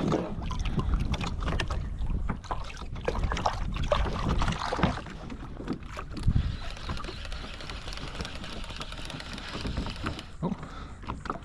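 Irregular water splashes and knocks of handling against a fishing kayak's hull, with wind rumbling on the microphone, busiest in the first half and settling after about seven seconds.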